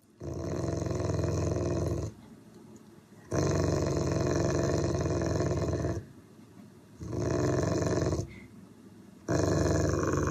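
Dog growling: four long, low, rattling growls with short pauses between them.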